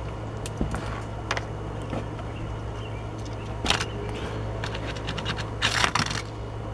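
Light clicks and short scrapes of a small die-cast metal toy car with plastic wheels being rolled and pushed across a surface, with a longer scrape near the end, over a steady low hum.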